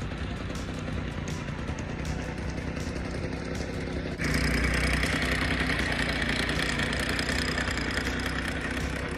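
Jacobsen 22 greens mower's small engine running steadily as the reel mower is pushed across grass. About four seconds in it gets suddenly louder, with a higher whirring hiss added on top.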